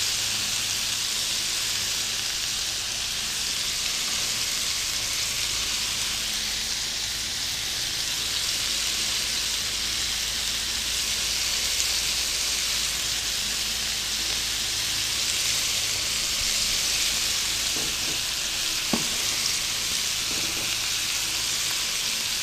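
Ground-beef smashburger slider patties sizzling steadily on a hot Camp Chef flat top griddle.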